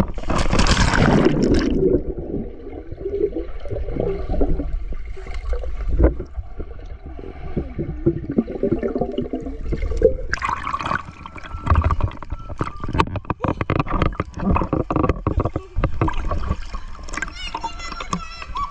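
Water splashing and sloshing close by, with a loud splash in the first two seconds and a run of knocks and clicks in the second half.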